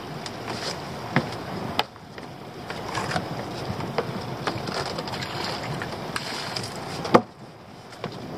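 Wind on the microphone and sea noise aboard a small open boat, with a few sharp knocks from gear being handled in the boat; the loudest knock comes about seven seconds in.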